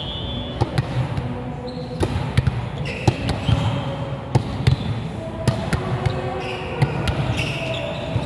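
Indoor volleyball in play: scattered sharp hits and bounces of the ball, with short high squeaks from players' shoes on the court floor, over a steady low hum of the hall.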